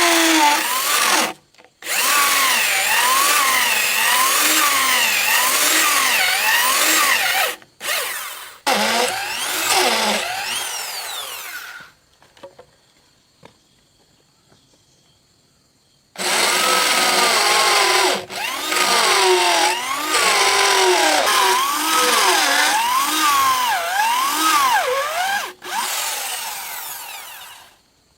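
Power tool running under load in long runs, its pitch wavering up and down over and over. It stops for about four seconds midway, then runs again.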